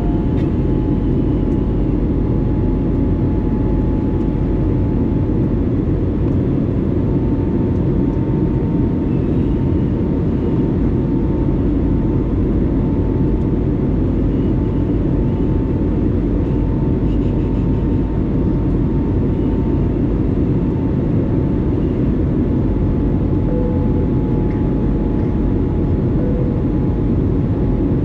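Steady cabin noise of an Airbus A320neo in flight: an even low rumble of engines and airflow with a faint steady whine above it.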